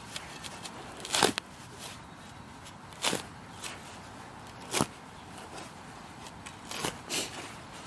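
A metal spade chopping into grass turf and soil, driven in with a boot to cut a wider hole. It makes about five sharp strikes, roughly every two seconds, with the last two close together.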